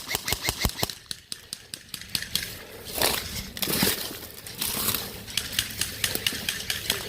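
Airsoft gun firing a rapid string of shots, about six or seven sharp cracks a second, then a few more scattered shots later on, with noisier rustling bursts in between.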